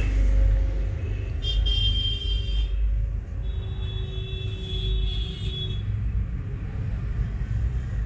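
A steady low rumble, with a high whistle-like tone about a second and a half in and a second, longer high tone from about three and a half to almost six seconds in.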